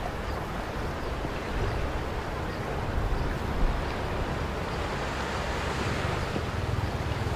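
Wind buffeting the microphone, a steady rush with uneven low rumbling, over the wash of surf on the shore below.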